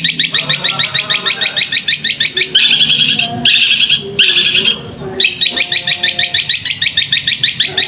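Long-tailed shrike (cendet) singing a fast run of sharp, repeated chattering notes, about seven or eight a second, broken near the middle by a few short, buzzier trills.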